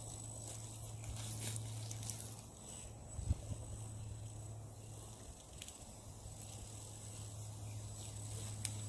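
Outdoor woodland ambience: a steady insect buzz over a low hum, with faint scattered clicks and a single thump about three seconds in.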